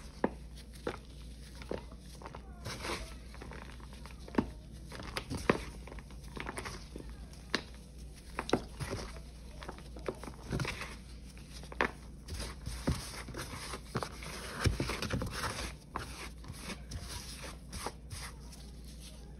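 Gloved hands crumbling dried Ajax, Pine-Sol and Palmolive paste in a plastic tub: dry, crunchy crackles and sharp snaps at irregular intervals, with a softer gritty crumbling between them.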